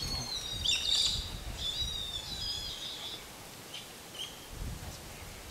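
Rabbit distress call from a predator caller: a run of high, falling squeals through the first three seconds, then fainter and sparser, over a low rumble of wind on the microphone.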